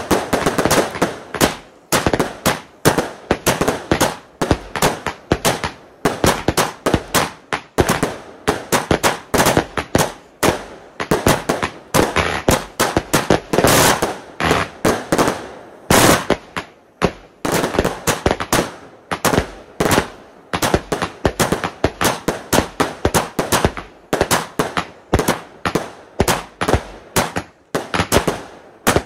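Hallmark Celebration 100-shot firework cake firing: a fast, unbroken run of sharp shots, a few a second, each trailing off briefly.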